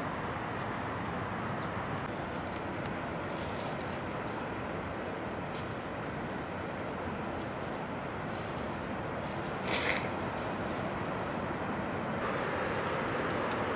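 Leafy plants rustling and stems snapping as leaves are picked by hand, over a steady outdoor hiss. A louder rustle comes about ten seconds in, and the hiss grows louder near the end.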